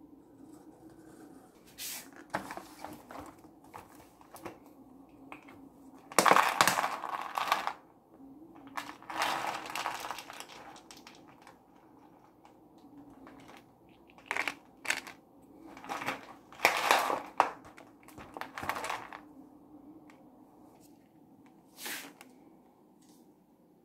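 Repeated bursts of crinkling and rattling as cat food is portioned into a clear plastic tray: a cat-food pouch crinkling and dry kibble rattling out of a small jar. The loudest bursts come about six seconds in and again about seventeen seconds in.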